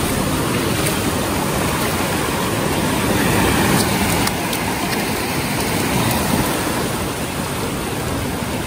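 Sea surf washing up onto a sandy beach, a steady rushing noise.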